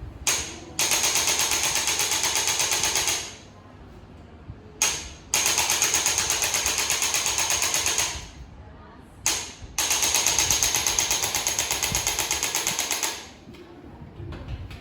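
A handheld electric percussion instrument is pressed against the body and runs in three bursts. Each burst starts with a short blip, then gives about three seconds of rapid, even mechanical pulsing with a high whine, and stops abruptly.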